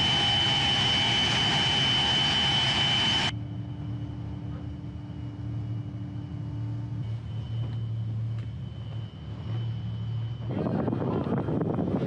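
Naval vessel's engines and machinery running: a loud hiss with a steady high whine that cuts off abruptly about three seconds in, then a quieter steady low machine hum, with louder rushing noise returning near the end.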